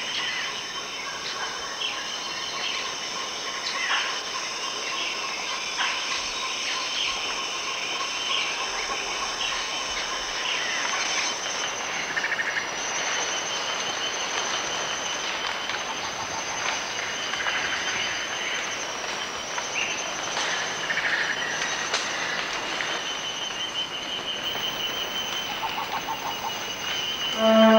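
Tropical rainforest ambience: steady, high-pitched insect trilling at several pitches, with short bird calls scattered over it.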